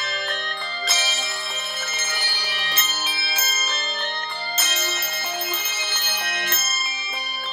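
An ensemble of five octaves of handbells and handchimes playing: many bells struck and ringing over one another. About a second in, and again about halfway through, the ringing thickens into a dense, bright shimmer.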